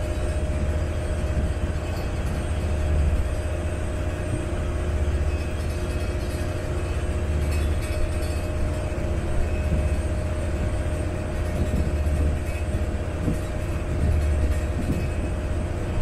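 A Venice water bus's engine running steadily under way, heard from the open deck as a low rumble that swells and eases every second or two, with a steady hum. An even hiss of wind and water rushing past sits over it.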